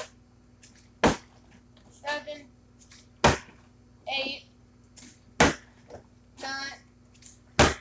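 Plastic milk jug being flipped and landing on a concrete floor, four sharp thuds about two seconds apart.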